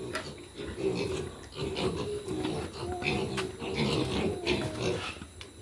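Pigs calling in their pens, a busy run of short pitched calls.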